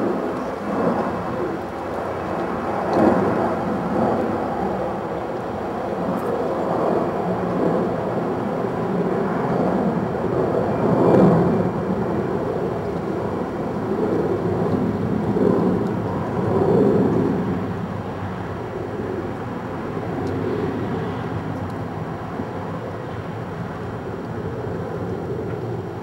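Distant road traffic: a steady rumble that swells and fades as vehicles pass, loudest about eleven seconds in.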